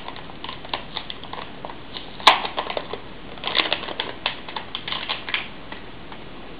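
Anti-static bag around a new SSD crinkling and crackling as it is torn open by hand, with a string of small sharp crackles and one louder crack about two seconds in.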